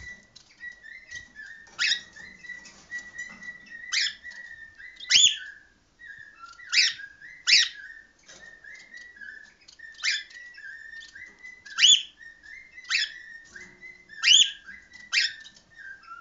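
Cockatiels calling: loud, short, sharp calls that sweep upward, roughly one every second or so, over softer, steady warbling whistles.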